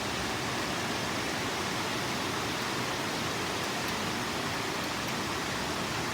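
Heavy rain pouring down steadily, an even hiss that holds at the same level throughout.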